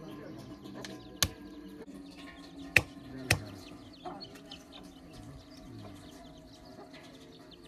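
Heavy knife chopping raw meat on a wooden stump block: one sharp chop about a second in, two more close together near three seconds, then a few lighter knocks.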